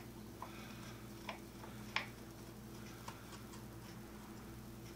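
Faint, scattered ticks and clicks of a small screwdriver working the screws that hold a circuit board plate, over a steady low hum.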